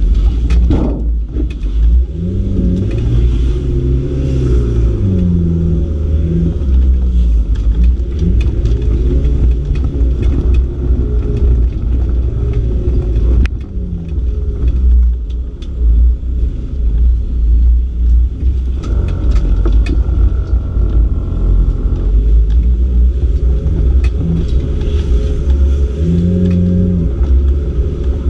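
Off-road competition car's engine heard from inside the cabin, revving up and falling back again and again as it is driven over a rough dirt course, with occasional sharp knocks from the body.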